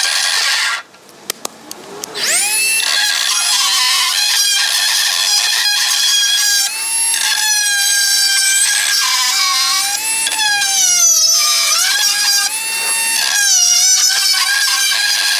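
A handheld power tool whining, cutting out briefly with a few clicks, then spinning back up about two seconds in, its pitch wavering up and down as the load changes.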